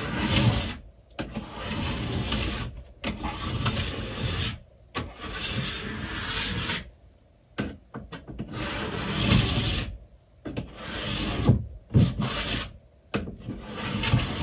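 Sharpening stone drawn in repeated strokes along a ski's steel edge, sharpening it and smoothing out rough, rusty patches. About eight gritty scraping passes, each a second or two long, with short pauses between them.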